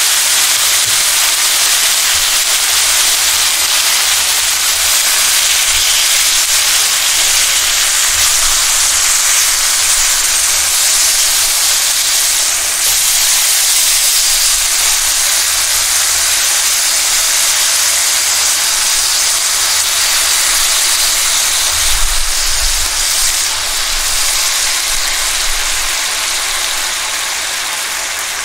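Sliced wagyu beef frying in a black iron wok in beef fat, sugar and soy sauce: a loud, steady sizzle that eases a little near the end.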